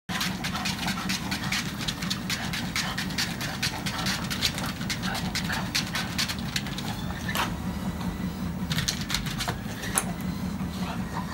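Treadmill running with a steady hum while an English bulldog walks on the moving belt, with many irregular light clicks from its paws and breathing.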